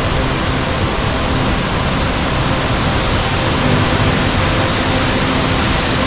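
Waterfall pouring into a rocky gorge close by: a loud, steady rushing of water with no letup.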